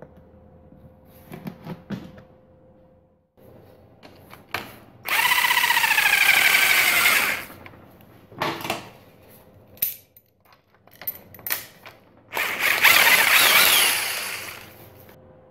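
Power drill running in two bursts of about two seconds each, its pitch wavering, with short clicks and knocks between them.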